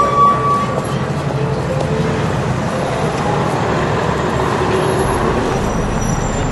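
City road traffic: vehicles passing with a steady rumble and tyre hiss, and a brief high-pitched tone in the first second.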